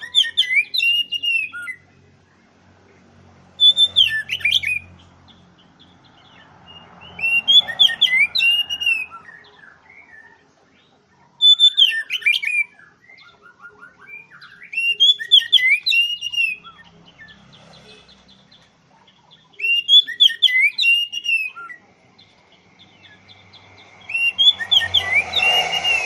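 Oriental magpie-robin (kacer) singing in short, loud phrases of quick whistled notes and sweeps, about one phrase every four seconds, seven in all. Near the end a steady tone and a rushing noise rise under the song.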